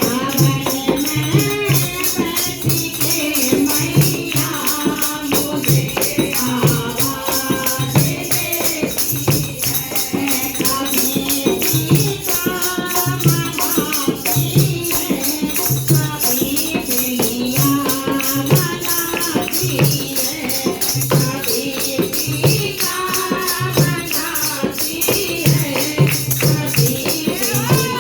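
Hindi devotional bhajan music with a steady, regular drum beat and continuous fast jingling percussion like a tambourine, with a melody line coming and going over it.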